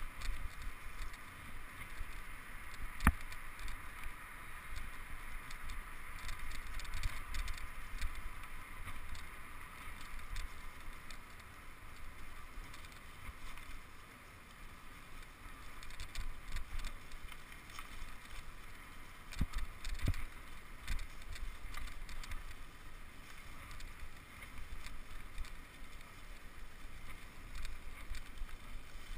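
Bicycle ridden along a leaf-covered dirt trail: an uneven rumble of tyres and bumps through the mount, with a steady hiss and a couple of sharp rattles or knocks.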